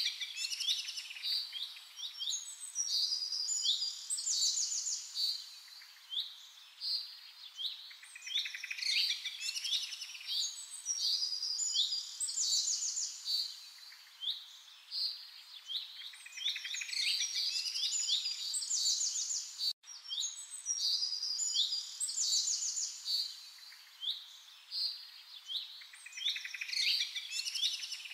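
Songbirds singing in chorus, with overlapping phrases of quick high chirps and trills. The sound cuts out for an instant about two-thirds of the way through.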